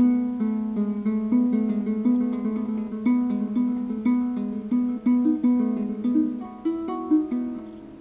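Ngoni, a West African string harp, plucked in a flowing, repeating figure of single notes, several a second, each ringing briefly and dying away.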